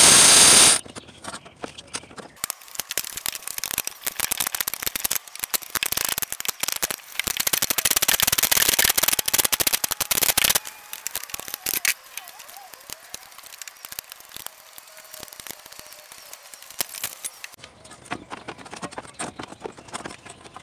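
A loud burst of noise about a second long at the start, then rapid clicking from a hand socket ratchet working on bolts. The clicking is densest for the first several seconds and thins out about halfway through.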